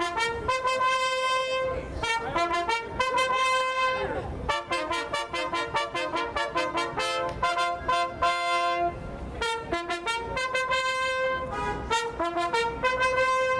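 Three trumpets playing together in harmony, quick repeated notes alternating with longer held ones.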